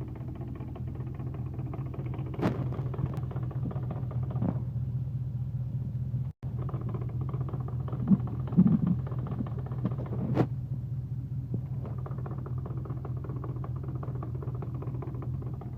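V8-swapped BMW E30 running steadily with a low rumble, with a sharp single knock every few seconds and a short cluster of thumps about eight seconds in: the knocking noise that the owner puts down to the 5-speed gearbox.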